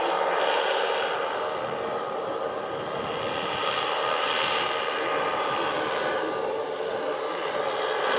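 The twelve 10 cc OS model engines of a 1:10-scale Dornier Do X model flying boat running together in flight, a steady many-engined propeller drone as the model climbs away.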